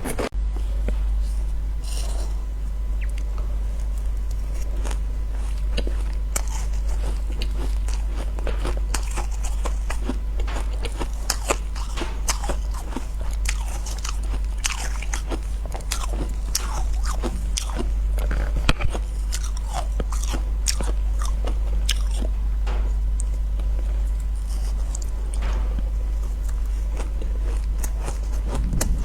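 Close-miked biting and chewing of ice or freezer frost: a dense, irregular run of crisp crunches and crackles over a steady low hum.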